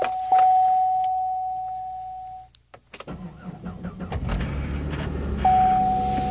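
Buick LeSabre's 3800 Series II V6 cold start at −14 °F: a dashboard warning chime stops, the starter cranks briefly about three seconds in, and the engine catches within about a second and a half and settles into a steady idle. The warning chime starts again near the end, repeating about once a second.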